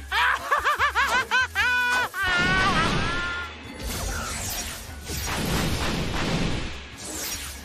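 A cartoon villain's quick cackling laugh, then a run of small bomb blasts and crashing rock, over dramatic action music.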